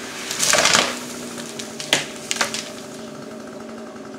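Two-stroke chainsaw idling steadily in the background. A loud, noisy rustling burst comes about half a second in, and two sharp cracks follow around two seconds in.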